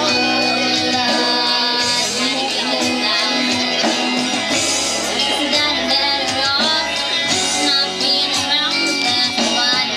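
Live band playing a pop song: a girl's lead vocal over a twelve-string acoustic guitar, with drums, bass guitar and electric lead guitar.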